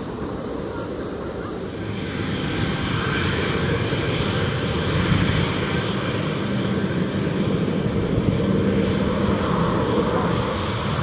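Fixed-wing aircraft engines running, a broad rush with a high whine on top, growing louder about two seconds in and then holding steady.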